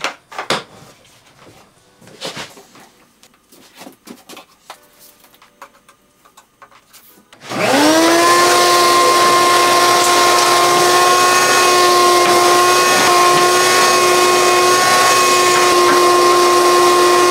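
A few light knocks and clicks, then about seven seconds in a wet/dry shop vacuum is switched on: its motor spins up almost at once to a steady high whine over a loud rush of air, and runs on evenly.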